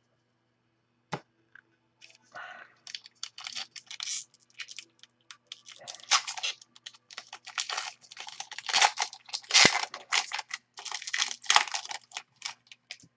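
A pack of 2005-06 Upper Deck basketball cards being torn open, its wrapper crinkled in the hands and the cards handled: a dense run of crackles and small ticks that starts about two seconds in, after a single sharp click just after the first second.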